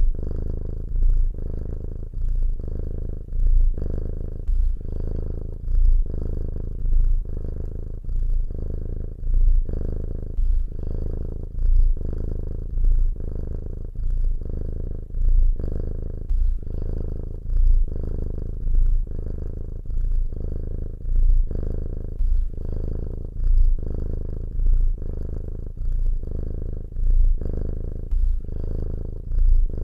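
Domestic cat purring close up: a low, continuous rumble that swells and eases in a regular rhythm, about once a second, with each breath in and out.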